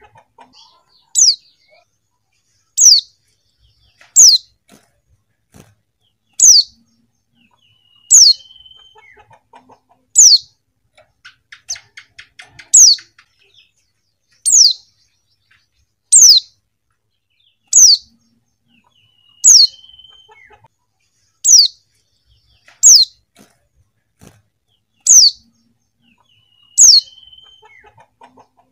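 Female white-eye (pleci) calling: a short, high, downward-slurred call repeated about every one and a half to two seconds, some with a brief lower note just before. A soft, rapid twitter comes about halfway through.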